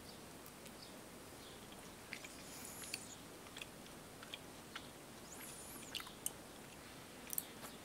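Faint chewing of a soft, lemon-flavoured chewy candy, with scattered small mouth clicks.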